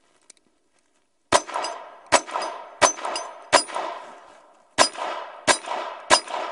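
Ruger LCP II .22 LR pocket pistol being fired seven times at a steady pace, about one shot every 0.7 s, with a slightly longer pause before the fifth shot. Each crack is followed by a short ringing tail.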